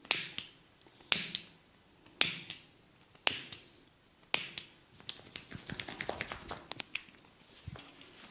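Five sharp snaps about a second apart, each trailed by a few fainter clicks, then a quick run of small crackling clicks: a barber's hands snapping and cracking during a head massage.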